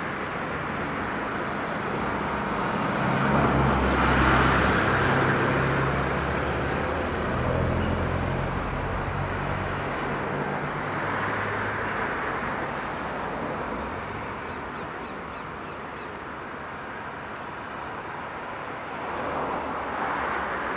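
A Boeing 767-300ER's twin turbofan engines running at low thrust as it taxis: a steady jet rumble with a thin, steady high whine. The rumble swells a few seconds in, then eases off.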